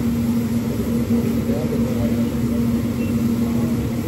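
Steady drone of a ventilation fan: a constant low hum with one strong tone.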